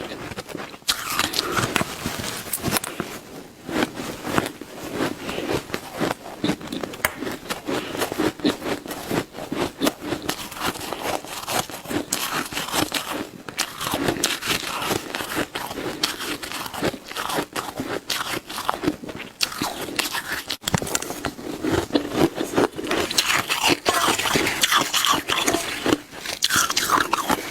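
Shaved ice being bitten and chewed up close, a continuous dense crunching and crackling of ice with steady, rapid bites.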